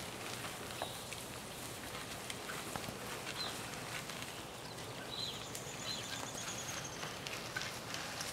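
Elk moving over grassy forest ground: scattered soft hoof steps and rustles, and a bull elk raking grass and brush with his antlers, giving light scrapes and snapping knocks. A few short high chirps come and go.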